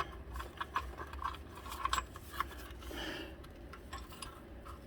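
Scattered light metallic clicks and clinks as a belt tensioner is worked by hand into its mount on the engine.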